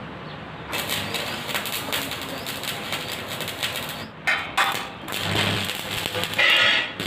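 Stick (arc) welding on steel square tubing: the electrode arc crackles and sputters steadily for about three seconds, then in several shorter bursts.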